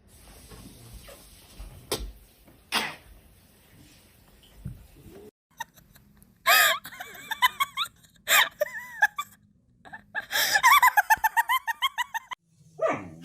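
A person laughing: quiet at first, then loud, high-pitched bursts of giggling from about six seconds in, ending in a quick run of repeated laughs near the end.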